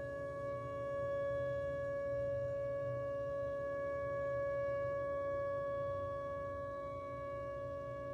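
Whelen WPS 2909 electronic outdoor warning siren sounding a steady alert tone: one held pitch with overtones, swelling and easing slightly in loudness.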